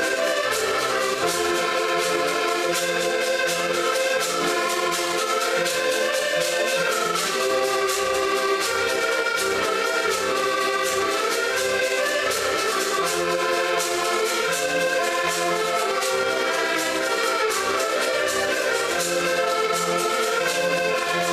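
Diatonic button accordions playing a lively folk tune together in chords, over a fast, steady clicking beat.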